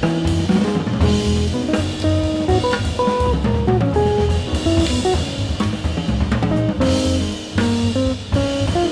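Jazz quintet playing, with the drum kit to the fore: snare, bass drum and cymbal strokes over double bass and a run of short pitched melody notes.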